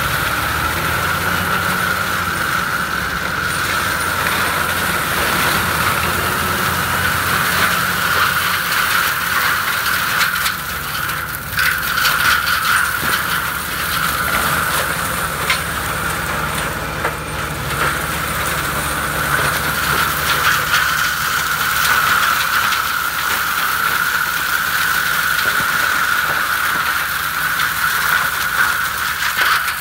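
FAE forestry mulcher driven by a Fendt 936 tractor shredding bushes: a steady, loud whine of the spinning mulcher over the tractor's diesel engine, with scattered cracks and snaps as branches are chewed up.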